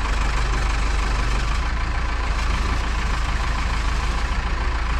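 A heavy engine idling steadily, a constant low drone with no change in speed.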